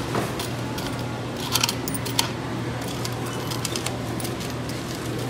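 Scattered small clicks and light clattering of items and payment being handled at a store checkout counter, the sharpest a little over one and a half seconds in and again just after two seconds, over a steady low hum.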